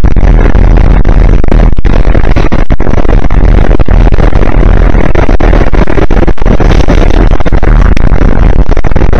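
Subway car running, a loud steady rumble and rattle that overloads the microphone into harsh, clipped distortion, broken by many brief dropouts.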